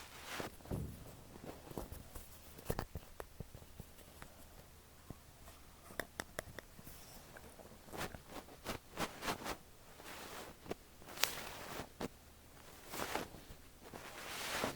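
Fluffy down ear brush stroking over a microphone's ear, in faint, irregular soft swishes and scratchy rustles with a few small clicks.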